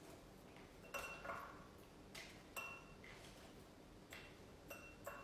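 Faint scattered taps and clinks of sliced red onion being packed by hand into a glass mason jar, three of them with a brief glassy ping.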